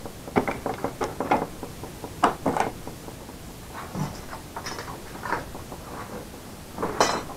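Clicks and knocks of plastic and small parts being handled: a clear plastic lid going onto a tub of small capacitors, then a few lighter taps and one louder knock near the end.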